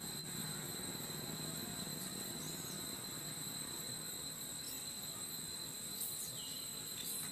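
Steady high-pitched drone of insects in the forest, with a few short chirps and clicks over it.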